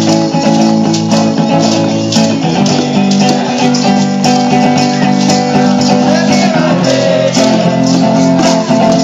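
Live band playing a song: strummed acoustic guitar with a cajon and shaker keeping a steady beat, and a group of voices singing along.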